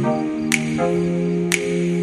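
Slow background music of held, sustained notes, with a light percussive tick about once a second.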